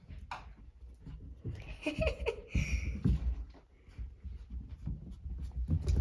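Dogs play-fighting: scuffling and irregular knocks and thumps, with a short pitched cry about two seconds in.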